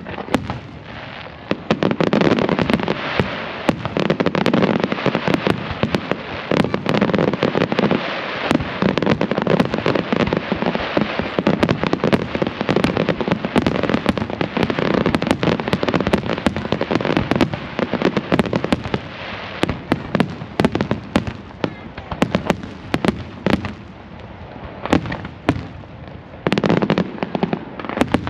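Large fireworks display: a dense, continuous barrage of bangs and crackling bursts. It eases briefly near the end before another loud cluster of bangs.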